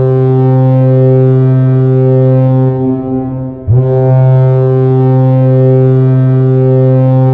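Colorado Avalanche's NHL arena goal horn, a low air horn signalling a goal, sounding in two long steady blasts: the first cuts off about three and a half seconds in and the second starts straight after.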